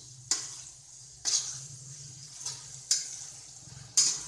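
Metal spatula scraping and stirring in a metal kadai, mixing crushed tomatoes into fried onion: four short scrapes, the loudest near the end.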